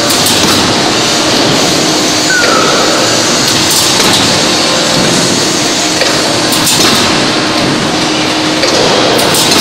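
1600-ton hydraulic forging press and forging manipulator at work on a red-hot billet: a loud, steady machine noise with a steady hum. A few sharp cracks come about every three seconds.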